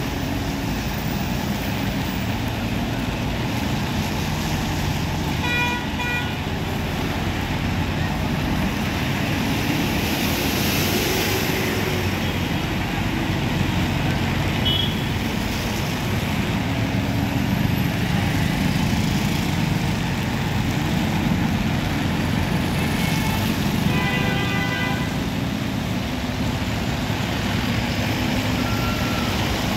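Heavy Volvo trucks' diesel engines running steadily as they crawl along under oversized loads, with a horn sounding about six seconds in and again, longer, around the 24-second mark.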